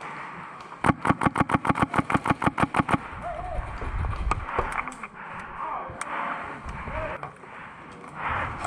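Airsoft gun firing a full-auto burst, about ten rapid shots a second for roughly two seconds, starting just under a second in. A couple of single sharp pops follow later.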